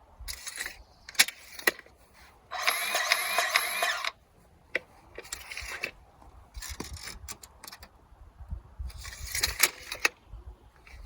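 Hand tool handled during a track-tension check: scattered sharp clicks and clatters, with a loud rattling mechanical whir lasting about a second and a half, and a shorter rattle near the end.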